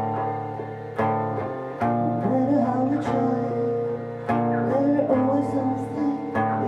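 Guitar music: chords struck about once a second, with a wavering melody line over them from about two seconds in.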